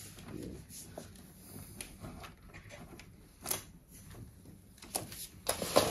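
Hands pulling and handling bundled electrical wires: scattered light rustles and clicks, with a sharper click about three and a half seconds in and several more clicks near the end.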